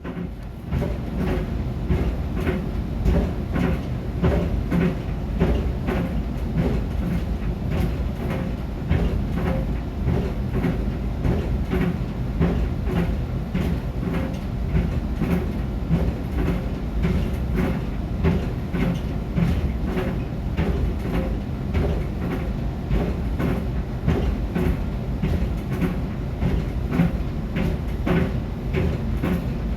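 A pair of Puma sneakers thumping rhythmically as they tumble in a running clothes dryer, over the steady rumble of the turning drum.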